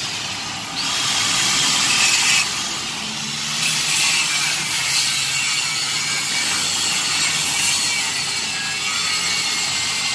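Angle grinder grinding a steel swing arm, the disc biting into the metal about a second in. The grinding eases briefly near three seconds, then runs on steadily.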